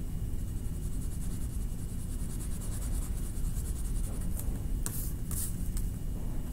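Colouring on a paper art card: fast, even back-and-forth scratchy strokes, with two louder scrapes about five seconds in, over a steady low hum.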